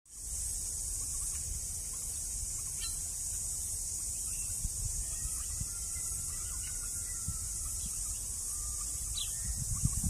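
Steady high-pitched insect chorus, with a low rumble underneath and a couple of brief faint bird chirps, about three seconds in and again near the end.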